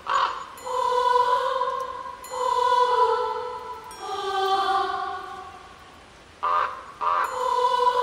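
Background music of long held, choir-like notes, several pitches sounding together and changing every second or two, with a short lull about six seconds in.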